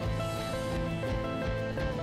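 Instrumental background music led by guitar, with held notes over a steady beat.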